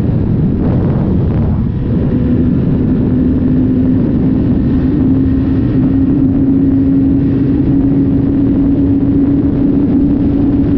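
2018 Honda CBR500R's parallel-twin engine pulling hard under acceleration at high speed, its note rising slowly and steadily as the bike gains speed, over heavy wind rush at the helmet-mounted camera.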